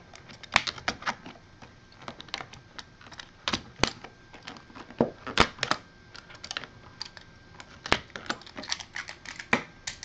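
Irregular light clicks and taps of trading cards and card-box packaging being handled and set down on a tabletop, a few sharper knocks among them.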